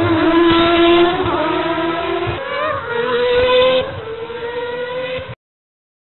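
Formula 1 race car engine at high revs, its pitch climbing, then a short break and a second climb. The sound drops back to a lower steady note, then cuts off suddenly about five seconds in.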